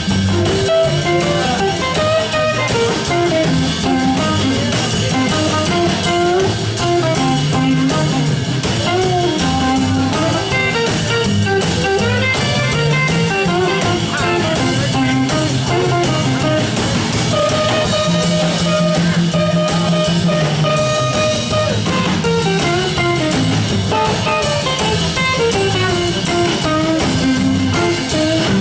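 A live blues band playing. An electric guitar leads with single-note lines and string bends over an upright bass and a drum kit.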